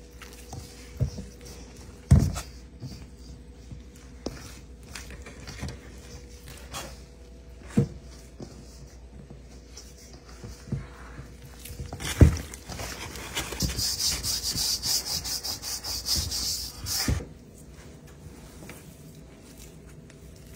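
A hand mixing flour into soft dough in a stainless steel bowl: dry rubbing and squishing, with a few dull knocks against the bowl. Past the middle comes a stretch of several seconds of faster, harsher scratchy rubbing.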